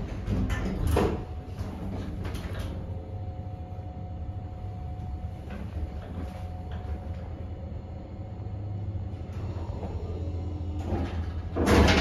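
A 1985 Mitsubishi passenger lift: the car doors close with a loud clunk about a second in, then the car travels with a steady low hum and a faint whine. Just before the end the doors begin to slide open with another loud clunk.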